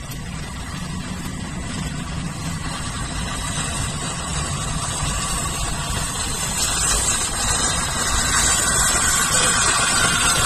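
LNER A3 Pacific steam locomotive 60103 Flying Scotsman approaching and drawing level, its running noise of rumble and steam hiss growing steadily louder.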